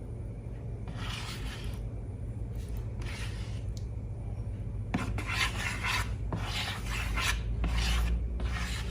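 Short rasping scrape or rub strokes, about one a second and then quicker and closer together from about five seconds in, over a steady low hum.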